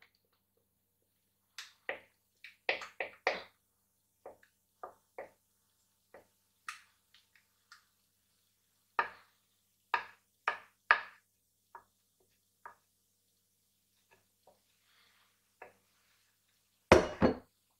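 Scattered short knocks and taps from a glass mixing bowl and wooden spoon as chocolate cake batter is poured and scraped into a metal springform tin, with a louder clatter near the end.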